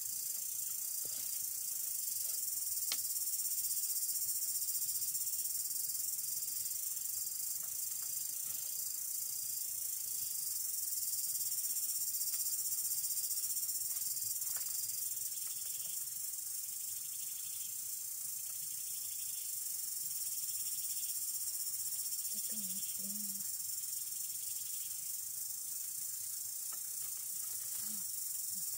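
Steady high-pitched drone of forest insects, with a few faint taps as bamboo slats are fitted into a frame.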